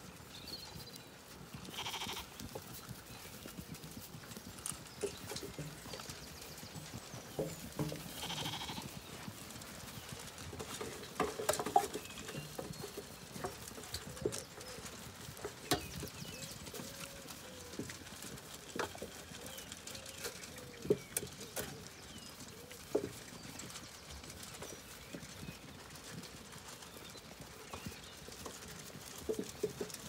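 Zwartbles ewes and lambs feeding at a metal trough: scattered knocks and clatter against the trough, with shuffling and munching. There are a few short bleats, most of them over the middle of the stretch.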